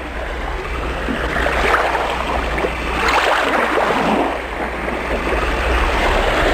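Ocean waves breaking and washing in, the surf noise swelling and easing every second or two over a steady low rumble.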